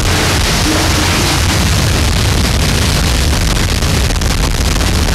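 Harsh noise music: a loud, dense wall of distorted noise across the whole range, with a heavy low rumble underneath and no beat or melody, holding a steady level.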